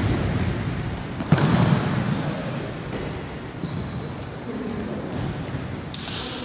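Futsal ball being kicked and thudding on a wooden gym floor, with one sharp kick about a second in and a brief high squeak a little later, all echoing in the hall.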